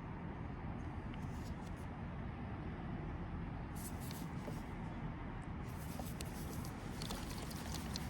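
Steady low rumble of a moving train, heard from inside the cabin, with scattered light clicks and rustles that come more often in the second half.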